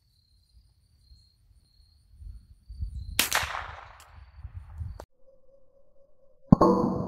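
Hammerli TAC R1 .22 LR semi-automatic rifle firing a single sharp shot about three seconds in. Near the end, louder, comes a sharp hit followed by a ringing tone that dies away, the ping of a bullet striking an AR500 steel plate target.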